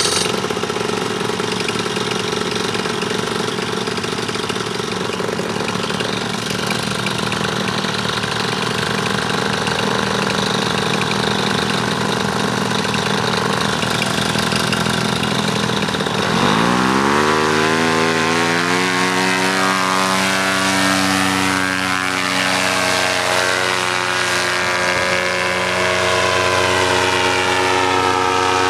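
Paramotor engine and propeller running steadily. About halfway through, the pitch sweeps up as the revs rise, then holds steady at the higher speed.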